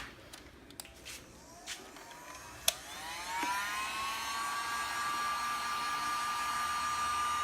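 Heat gun started up: its fan motor whine rises in pitch over a few seconds, then runs steadily with a rush of blowing air. There is a sharp click as it comes up to speed.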